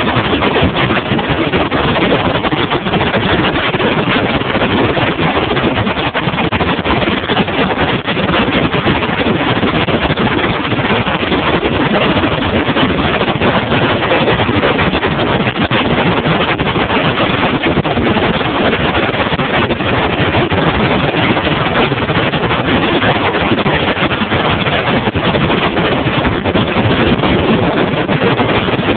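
Bass boat under way on open water: a steady, loud rush of motor, water and wind noise with no breaks.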